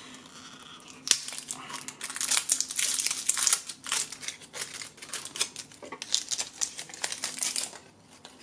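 AA batteries being handled and fitted into a Tascam DR-22WL handheld recorder's battery compartment. A sharp plastic click comes about a second in, then a stretch of crinkly rustling and quick small clicks and scrapes.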